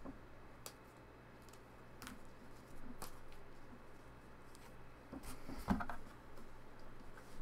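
Trading cards being handled on a table: a few faint, scattered light taps and rustles, loudest near the end.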